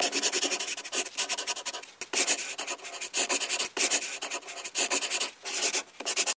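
Pencil scratching rapidly on paper in quick sketching strokes, with a few brief pauses; it cuts off suddenly at the end.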